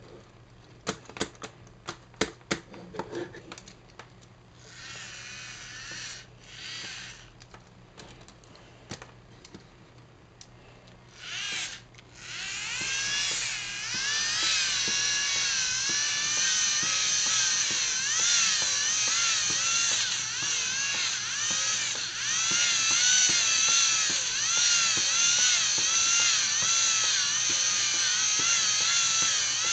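Small LEGO Technic electric motor driving a plastic walking machine. Plastic clicks come first as it is handled, then a few short runs of the motor. About twelve seconds in it starts running continuously, its whine rising and falling in pitch in a steady rhythm as the legs step.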